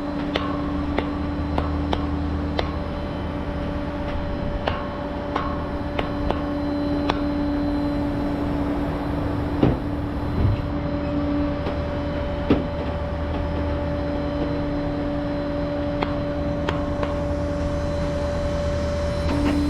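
Flatbed tow truck running with a steady mechanical drone and whine, and scattered clicks and a few knocks over it.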